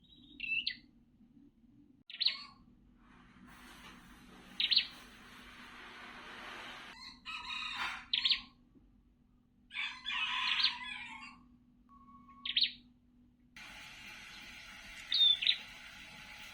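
A songbird giving short, sharp chirping calls, one roughly every two seconds, over a background hiss that cuts in and out abruptly.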